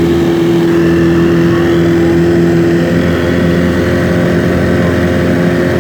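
Motorboat engine running steadily under way, with water and wind noise; its note shifts about three seconds in.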